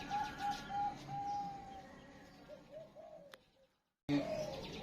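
Zebra dove (perkutut) cooing: a quick run of short rising-and-falling notes, then one longer held note, trailing off into softer notes. A sharp click about three and a half seconds in is followed by a brief moment of silence before the sound resumes.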